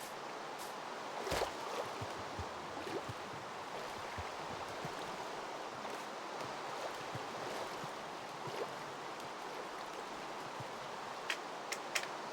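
Steady rush of flowing floodwater, with a few sharp clicks or knocks about a second in and again near the end.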